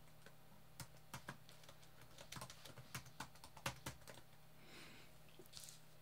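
Faint computer keyboard typing: an irregular run of short key clicks, thickest between about one and four seconds in.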